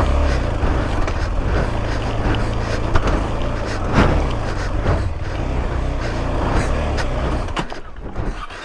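Motorcycle engine running under load on a rocky off-road climb, with sharp knocks from stones and the bike jolting over them. The engine sound drops away near the end.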